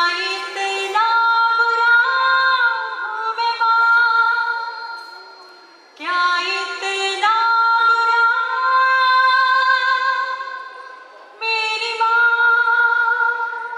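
A female voice singing a slow melody in long held notes, in three phrases, each starting loud and fading.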